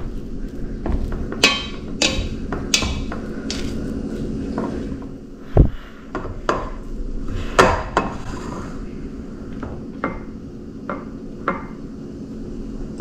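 Plastic rice paddle scraping and knocking against a stainless steel pot while scooping and fluffing cooked rice, irregular sharp knocks with two louder ones in the middle. Near the end the rice is scooped onto a plate. A steady low hum runs underneath.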